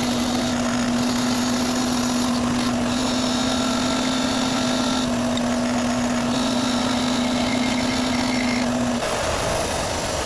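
Electric buffing wheel running with a steady hum while a metal lathe part is buffed, a higher hiss coming and going several times over the hum. The hum stops about nine seconds in.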